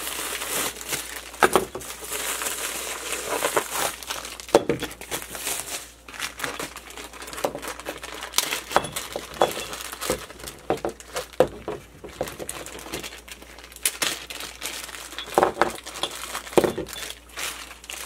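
Plastic packaging crinkling and rustling as a white poly mailer bag is handled and zip-lock parts bags are pulled out and shuffled, with many sharp irregular crackles.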